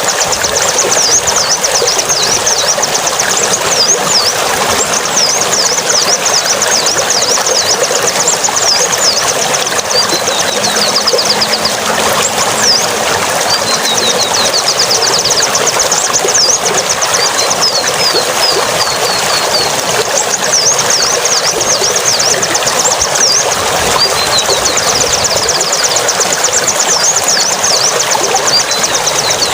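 A steady rush of noise like running water, with a songbird's rapid high chirps and trills repeating over it, pausing briefly now and then.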